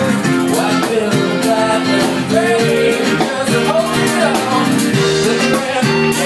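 Live rock band playing: strummed acoustic guitars and an electric bass guitar, with a man singing.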